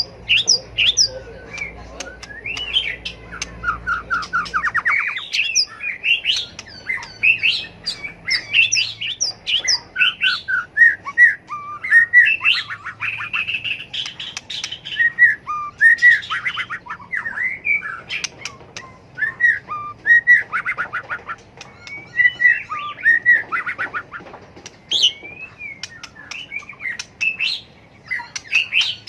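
White-rumped shama singing continuously: a varied stream of rich whistled phrases and glides, broken by several rapid trills and short sharp notes.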